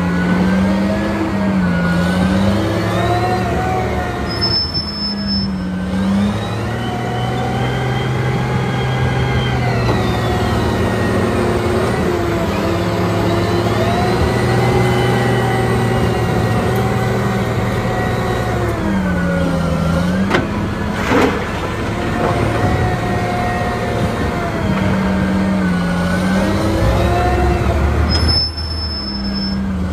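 Diesel engine of a Caterpillar 990 wheel loader running hard while digging and lifting loads, its pitch falling and rising again and again as it revs up and down. A single sharp knock about two-thirds through.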